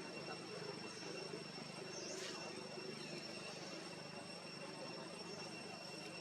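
Faint, steady outdoor background: a constant high-pitched hum with a few faint short chirps, one about two seconds in.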